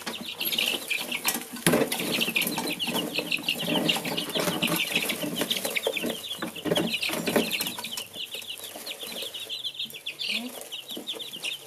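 A brooder full of baby chicks peeping nonstop, a dense chorus of short high chirps that thins a little near the end, with occasional soft knocks.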